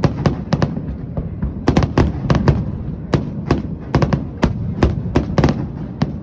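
Aerial fireworks bursting in rapid, irregular succession: many sharp bangs, several a second, over a continuous low rumble from the display.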